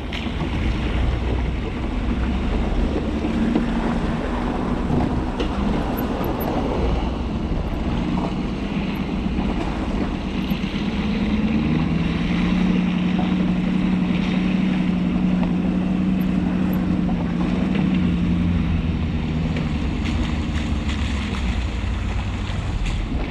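Ford F-250's 6.7-litre Power Stroke V8 diesel running as the pickup drives a wet off-road trail, splashing through standing water at first. About halfway through, the engine's drone grows stronger and holds steady for several seconds as the truck comes closer.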